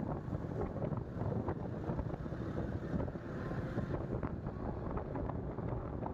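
Moving vehicle's road noise with wind buffeting the microphone: a steady low rumble with small irregular knocks throughout.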